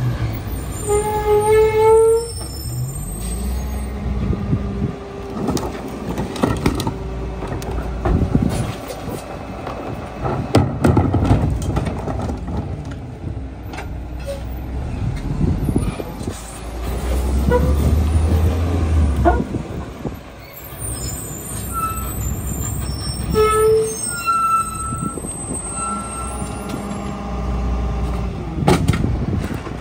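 Mack MR garbage truck's diesel engine running as the Leach rear-loader packer works, the engine revving up for a couple of seconds past the halfway point. Over it come short high squeals and many metal clanks and bangs.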